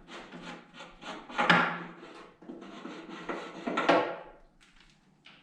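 Handling noises as a machine's end cover is opened up: irregular rubbing and scraping, with two louder scrapes about a second and a half in and just before four seconds.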